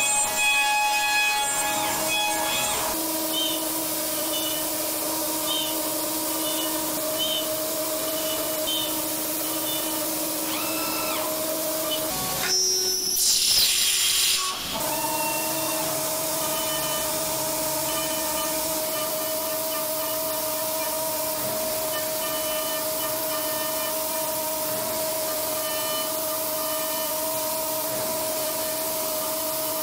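CNC milling machine's end mill cutting a metal workpiece: a steady whine of several held tones over a hiss. About twelve seconds in it gives way for a couple of seconds to a brighter, harsher noise, then the steady whine returns.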